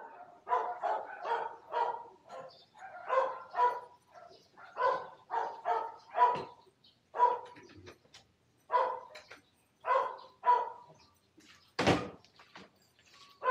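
A dog barking over and over in quick runs of short barks, with a single sharp thump about twelve seconds in.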